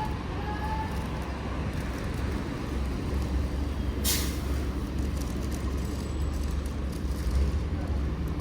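Bus engine running with a steady low rumble; about four seconds in, a short sharp hiss of compressed air being released from the bus's air system.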